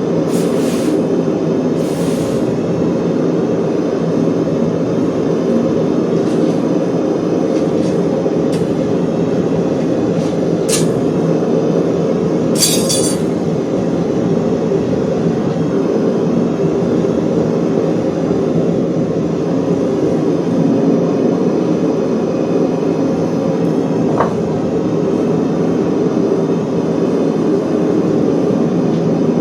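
Loud, steady workshop machine noise, with a few short metallic clinks and a brief bright rasp about 13 seconds in.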